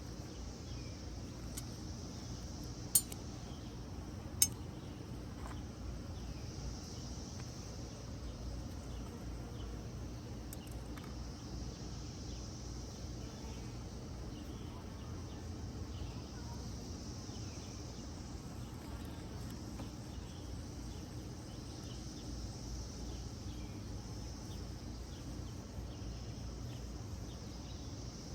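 A high insect chorus that swells and fades every few seconds over a steady low hum, with two sharp clinks about three and four and a half seconds in.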